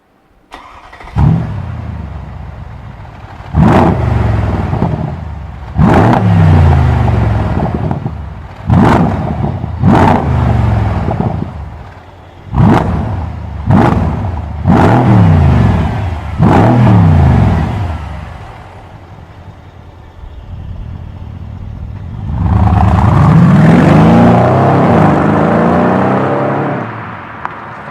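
Mercedes-Benz E63 AMG V8 with a MEC Design 'Earthquake' sport exhaust starting up about a second in, then revved in about eight sharp blips, the pitch falling back after each, and held up for a few seconds near the end.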